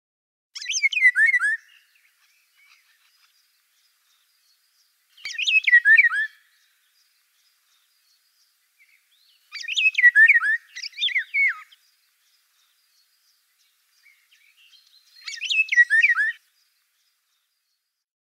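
An oriole singing: four short phrases of whistled notes that slide downward, each a second or two long and several seconds apart.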